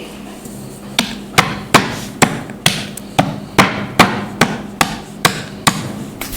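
Chunks of khadi chalk (khadiya mitti) being crumbled: a run of about a dozen sharp, dry cracks, two or three a second, starting about a second in.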